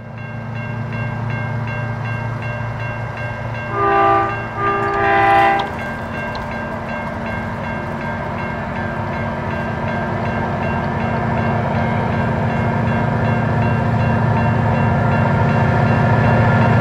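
Diesel locomotives hauling a loaded grain train, their engines droning steadily and slowly growing louder as the train approaches. About four seconds in, the horn sounds two short blasts.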